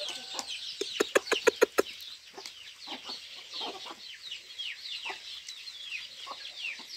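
A flock of chickens feeding: chicks peep constantly with short, high, falling chirps, and about a second in a hen gives a quick run of loud clucks.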